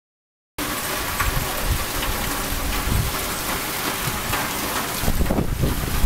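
Heavy storm rain pouring down, starting about half a second in as a dense, steady hiss. Louder low rumbling pulses come near the end.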